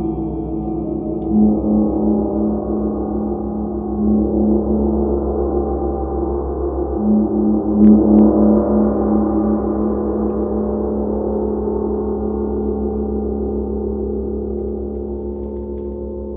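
Large chau and symphonic gongs rubbed and struck with soft felt mallets, making a dense, sustained ring over a throbbing low hum. The sound swells up about a second in, again at four seconds and most strongly around eight seconds, then slowly fades.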